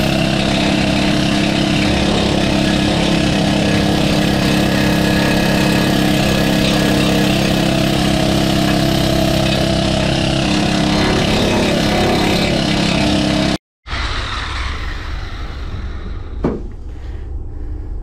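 Angle grinder with a flap disc grinding rusty steel, a loud, steady grinding noise over the motor's whine. It cuts off abruptly about fourteen seconds in; a quieter rumble remains, with one knock a couple of seconds later.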